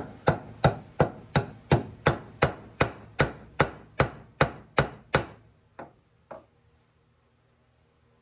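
Small hammer tapping a new universal joint's needle-bearing cup into the steel yoke of a Triumph Spitfire axle shaft: even metal-on-metal taps about three a second, growing lighter and stopping about five seconds in, then two softer taps.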